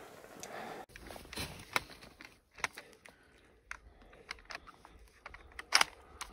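Close rustling of clothing and gear with scattered small clicks and knocks as a hunter shifts and handles his kit. The loudest knock comes near the end.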